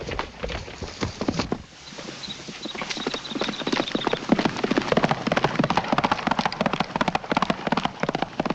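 Horse galloping, a fast run of hoofbeats on a dirt track, growing louder and denser from about three seconds in.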